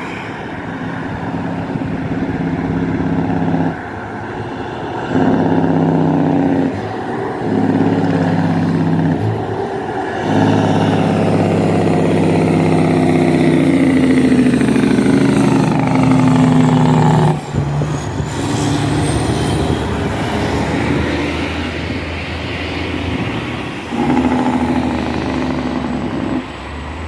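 Highway traffic passing close by, loudest from a tractor-trailer's diesel engine. The engine's steady note cuts out and comes back several times, and the noise falls in pitch as the truck goes past, about halfway through.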